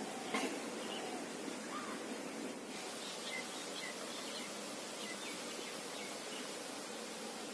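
Quiet outdoor ambience by a pond: a steady hiss with scattered short bird chirps. There is a single brief click about half a second in.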